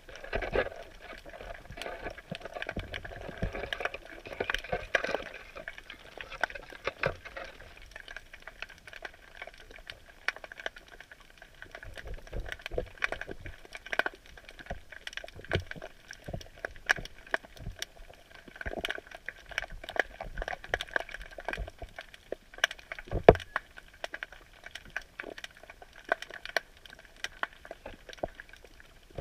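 Underwater sound picked up by a camera in a submerged crab drop net: a steady watery hiss with irregular sharp clicks and crackles scattered through it, and one louder knock late on.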